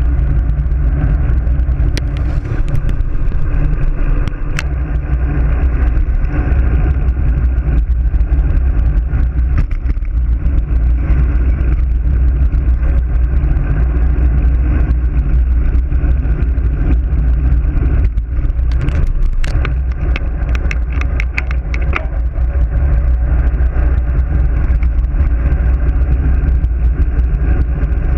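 Wind rushing over a bike-mounted action camera's microphone during a fast road-bike descent, a loud, steady low rumble with tyre noise on asphalt. A run of sharp ticks comes about two-thirds of the way through.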